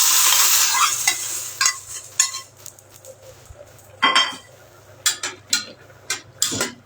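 A burst of sizzling, loudest at the start and dying away after about a second. Then a spoon stirs and knocks against the cooking pot several times.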